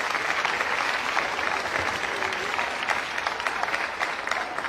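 Spectators applauding in the hall after a point in the table tennis match, many hands clapping together, easing off slightly near the end.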